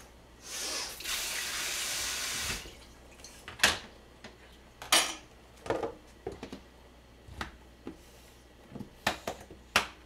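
Water runs from a tap for about two seconds. Then the plastic lid of a kimchi storage container is pressed on and its snap latches are clipped shut, giving a series of separate sharp plastic clicks and knocks.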